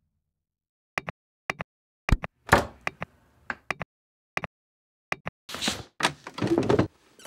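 Knocking on a door: a run of short, sharp raps, several in quick pairs, followed near the end by two longer, noisier sounds.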